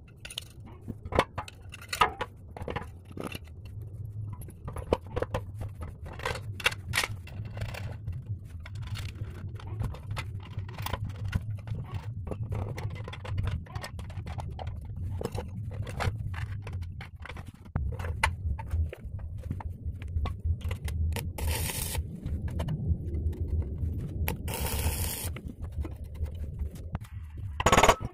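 Metalworking noise: repeated scraping and clicking over a steady low hum, with two brief loud hissing bursts near the end.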